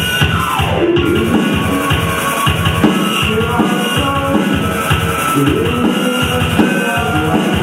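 A band playing live, loud, over a steady drum beat; a tone slides down in pitch during the first second, followed by a wavering melody line.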